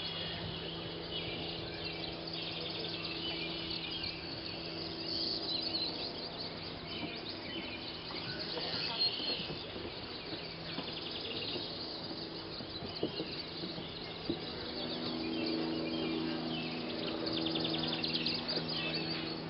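Woodland chorus of migrant songbirds: several birds singing at once, with overlapping high chirps and rapid trills. A low steady hum runs underneath and grows stronger after about fifteen seconds.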